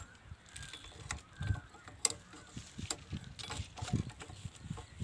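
Spanner and metal parts clinking on a diesel pumpset engine as its head plate is unbolted: scattered sharp metal clicks with duller knocks in between.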